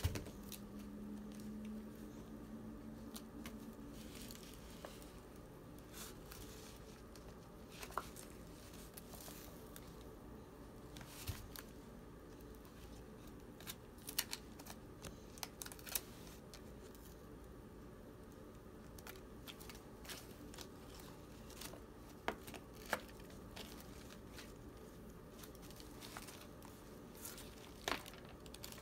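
Paper pages of a paperback book rustling and flicking as a toddler's hands turn them, in short scattered bursts.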